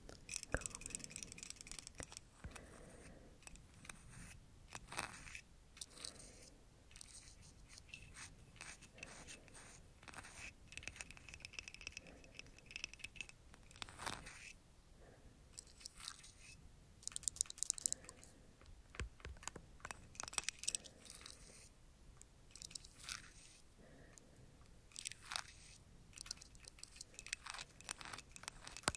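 Close-miked scratching and brushing: dense crackly clicks and soft swishing strokes, with louder strokes about 5, 14, 17 and 20 seconds in.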